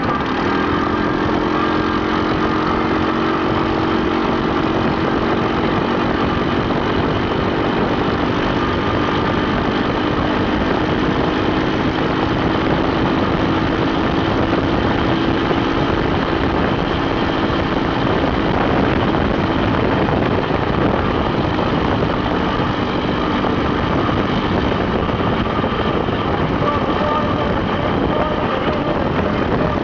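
Off-road vehicle engines running at a steady speed, with a droning note that sinks slowly in pitch and fades about three quarters of the way through. Under it is a constant rushing noise.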